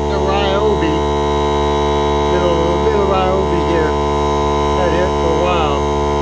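Ryobi 18-volt cordless portable air compressor running with a steady hum.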